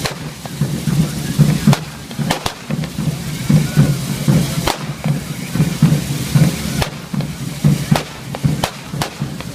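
Ground-level fireworks going off: scattered sharp firecracker bangs, several in quick succession near the end, over a hiss of spraying sparks. Underneath runs a steady low rhythmic beat.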